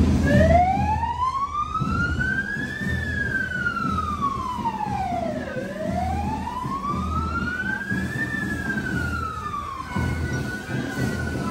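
Emergency-vehicle siren on a Civil Defence van, wailing in two slow rise-and-fall sweeps, each climb taking a couple of seconds, then cutting off partway through a falling sweep about ten seconds in.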